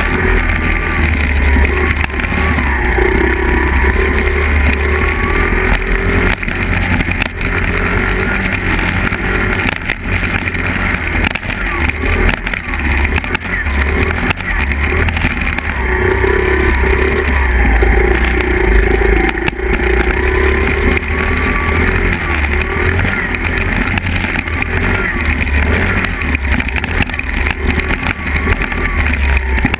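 Small 50cc Honda four-stroke dirt bike engines running on the move, the pitch rising and falling as the throttle is opened and eased, with wind rumbling on the microphone.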